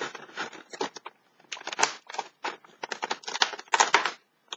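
Irregular crackling and scratching of a cardboard advent calendar door being picked and torn open with the fingers.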